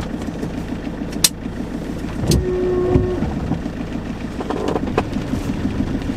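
Camper van's diesel engine idling steadily just after starting, with a close, even low pulsing. A sharp click sounds just over a second in, and a short held tone a little over two seconds in.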